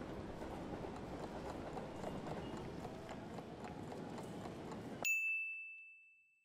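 Low, steady train-station background ambience with faint clicks, then a single bell chime about five seconds in that signals time is up; the ambience cuts off and the chime rings out.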